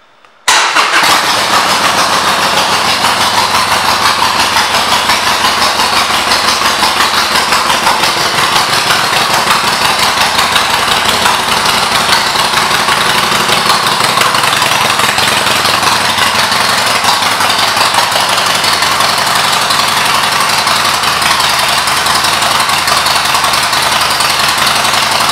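2012 Harley-Davidson Sportster Seventy-Two's air-cooled 1200 cc V-twin starting about half a second in, then idling steadily with an even, loping pulse.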